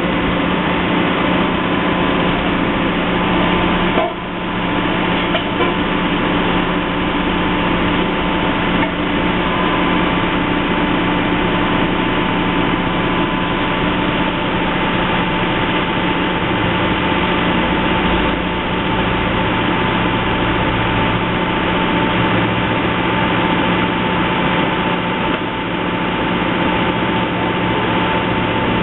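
Heavy construction machinery running steadily, a loud continuous engine drone with a steady hum, and a single knock about four seconds in.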